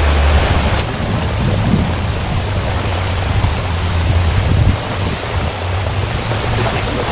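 Heavy rain pouring down steadily in a storm, with a deep continuous rumble underneath.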